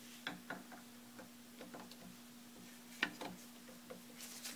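Faint scattered metal ticks and clicks of a long screwdriver's tip against a screw and the surrounding cast iron on an Atlas lathe gearbox, with one sharper click about three seconds in. The tip is being worked onto a hard-to-reach screw at an awkward angle.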